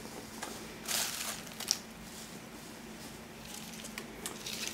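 Rustling and crinkling of shredded paper packing fill being pulled out of a cardboard box by hand, with a burst of rustling about a second in and a few light clicks and taps later.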